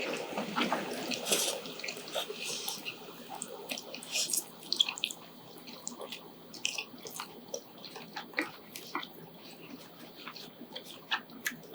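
Noodles being slurped and chewed with wet mouth sounds, loudest and most continuous in the first few seconds, then scattered small clicks of chewing and eating.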